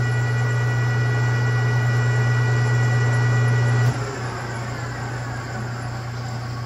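Metal lathe running with a steady hum and high whine while facing a Remington 700 receiver, then switched off about four seconds in, its whine falling as the chuck coasts down.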